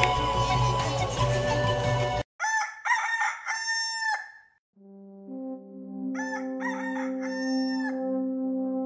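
Loud party din with music cuts off abruptly, and a rooster crows twice, each crow a few rising-and-falling syllables. A sustained, horn-like music chord comes in under the second crow.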